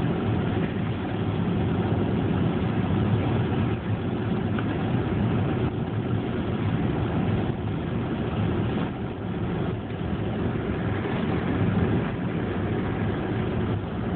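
Steady low road and engine noise heard from inside the cabin of a moving car.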